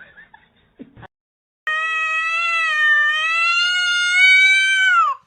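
A cat giving one long, drawn-out meow lasting over three seconds. It wavers slightly and drops in pitch just before it cuts off.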